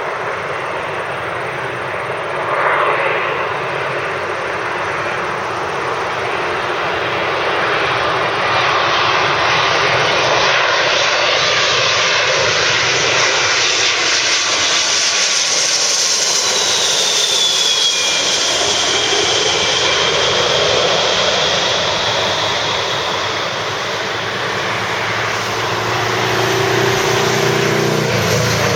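Boeing 767-300ER's Rolls-Royce RB211 turbofans on landing: a loud, steady jet roar that builds in the first seconds and holds through the middle, with a thin whine falling in pitch as the airliner goes by, then easing near the end.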